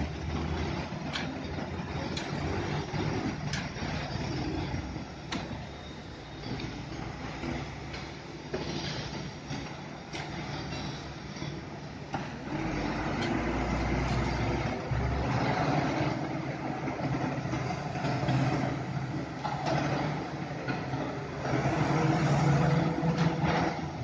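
Diesel engine of a Hino Ranger concrete mixer truck running as its drum turns to unload concrete down the chute. The engine note swells louder at times, with a few sharp clicks over it.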